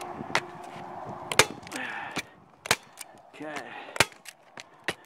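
Hand staple gun snapping staples through roofing felt into the roof deck: five sharp snaps about a second apart, with a few fainter clicks between.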